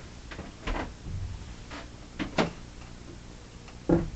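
A handful of short knocks and bumps, the loudest just before the end.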